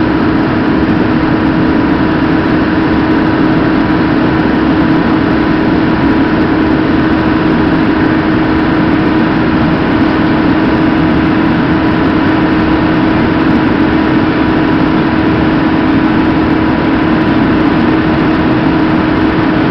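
An engine idling steadily, a constant hum that neither rises nor falls.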